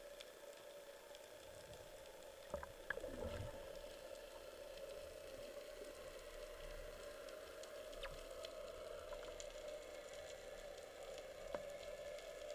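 Quiet underwater ambience: a steady crackling hiss with a low hum underneath and scattered sharp clicks, and a brief louder cluster of clicks with a falling swoop about three seconds in.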